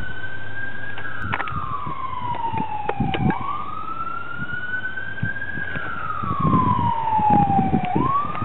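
Siren wailing: a single tone that slides slowly down in pitch, sweeps quickly back up and climbs again, about once every four and a half seconds, over low rumbling noise.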